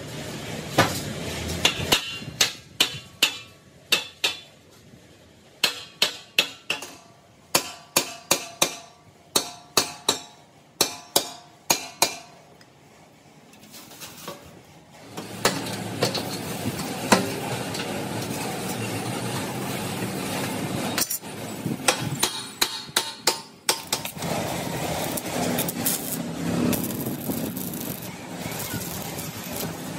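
Metal being struck again and again, sharp clanks with a short ring, in quick irregular runs. About halfway through they give way to a steady machine noise, with a few more knocks in it.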